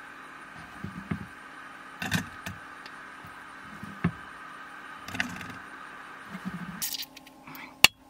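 Soft thuds as cubes of tofu are dropped into a stainless steel pot, over a steady hum that stops abruptly near the end. A single sharp click comes just before the end.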